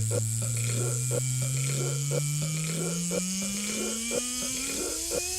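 Electronic music build-up: a buzzy held tone glides slowly and steadily upward in pitch over a steady beat.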